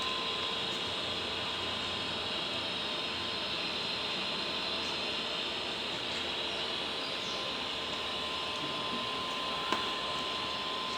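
TIG welding arc on steel pipe, a steady hiss with a thin constant tone under it, running on evenly as the weld bead is laid. A single sharp click about ten seconds in.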